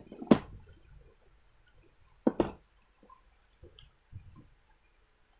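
A few sharp clicks and taps of a Logitech gaming headset and its packaging being handled: one about a third of a second in, a quick pair a little after two seconds, then fainter taps.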